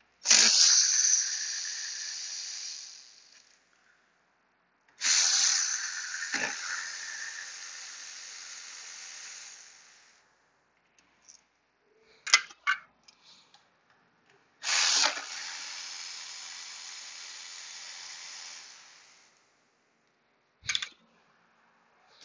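Three long runs of a hissing power ratchet backing out the throttle-body bolts, each starting loud and tailing off over a few seconds, with a few short clicks between the runs and one more near the end.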